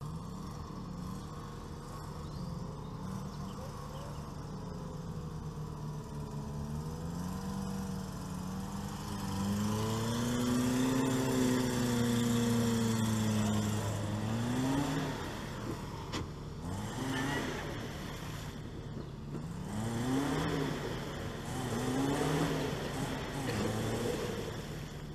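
A Suzuki 4x4's small petrol engine working through a mud-filled trench, revs rising and falling under load, with a long pull in the middle and then several short bursts of throttle near the end.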